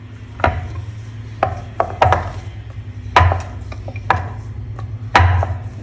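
Rolling pin rolling out a small ball of dough into a thin round, like puri: a steady low rumble broken by several knocks at uneven spacing as the pin bumps the board.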